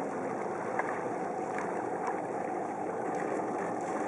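Steady rushing noise of a boat moving slowly through icy water, with a few faint ticks.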